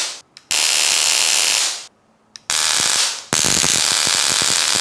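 Homemade high-voltage stun gun arcing across its roughly 3¾-inch electrode gap, a loud, harsh crackling buzz that comes in bursts. One burst cuts off just after the start, and three more start about half a second, two and a half seconds and just over three seconds in. The last runs on past the end.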